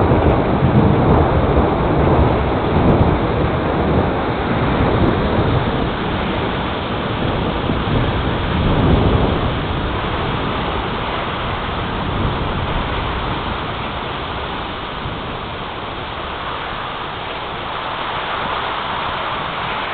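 Rain and gusting wind of a thunderstorm: a steady rushing noise with a heavy low rumble that is strongest in the first half and slowly eases off.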